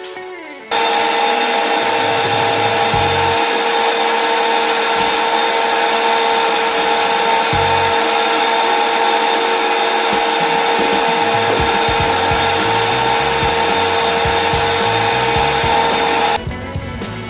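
An electric woodworking power tool running at a steady speed, a constant motor whine over a hiss, that starts abruptly about a second in and cuts off suddenly near the end. Background music plays beneath it.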